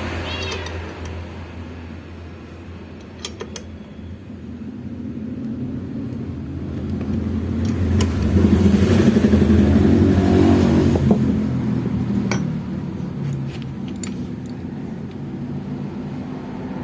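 Suzuki GT750 two-stroke triple engine running, building up to its loudest for a few seconds around the middle and then easing back, with a few sharp clicks.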